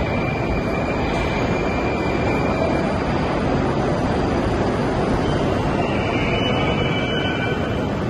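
Moscow metro train pulling into the station along the platform, a loud steady rumble of wheels and motors echoing in the hall. A faint high brake squeal joins near the end as it slows to a stop.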